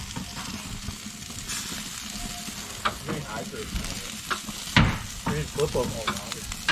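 Bratwursts sizzling on a hot gas grill grate: a steady crackling hiss, with a couple of sharp knocks, the loudest about five seconds in.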